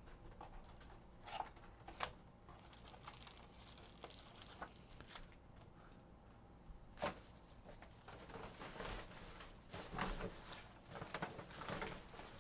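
Foil-wrapped trading-card packs being pulled out of a cardboard hobby box and stacked, with the wrappers crinkling and rustling. Light knocks sound now and then as the packs and the box are set down, and the rustling thickens near the end.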